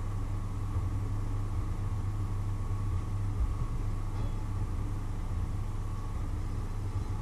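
A steady low mechanical hum with a faint steady high tone over it, unchanging throughout.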